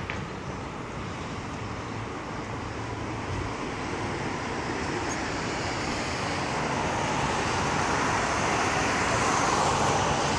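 Road traffic: a steady wash of car engines and tyre noise that builds as vehicles approach, loudest near the end.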